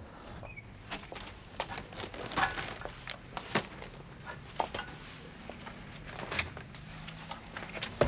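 A bunch of keys jangling and clinking, with a run of small, irregular metallic clicks as they are handled.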